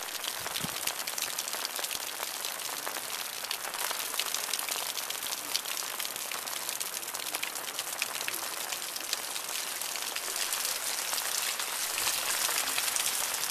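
Heavy rain falling steadily, a dense patter of drops, growing a little louder near the end.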